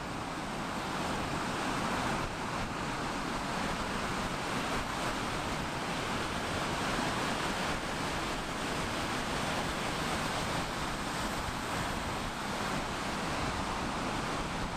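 Ocean surf breaking on a sandy shore: a steady, continuous rush of waves.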